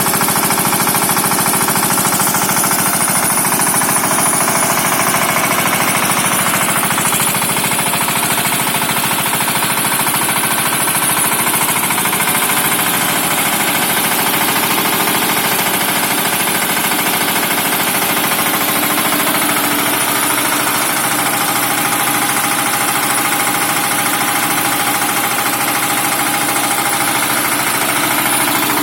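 A 7.5 kVA air-cooled diesel generator running steadily at constant speed, loud, with a rapid, even beat of firing strokes.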